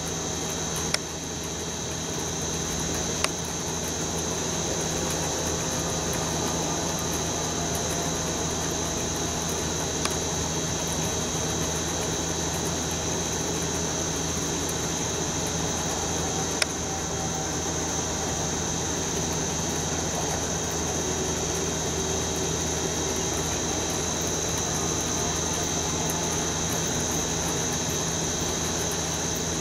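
Steady background noise: a low mechanical hum under a continuous high-pitched whine, with a few faint clicks. No sound from the cat is evident.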